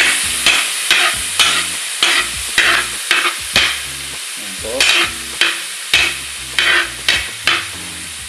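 Minced garlic sizzling in hot oil while a spatula stirs and scrapes it across the pan in quick repeated strokes, about two a second, with a short pause near the middle.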